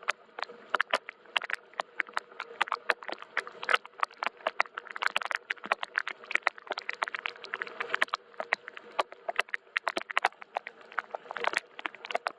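Gentle rain, its drops tapping irregularly on a hard surface: many separate sharp ticks a second over a light hiss, at an even level throughout.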